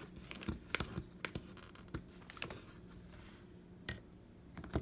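Scattered light clicks and taps of hands handling small phone parts and packaging.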